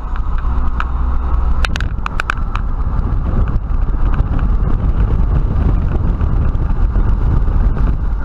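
Steady road and wind noise inside an open-top Jeep Wrangler driving at highway speed, with tyre and engine rumble heaviest in the low end. A few brief clicks about two seconds in.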